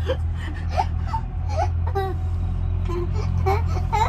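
Short whimpering and wailing vocal cries that glide up and down in pitch, heard over a steady low hum.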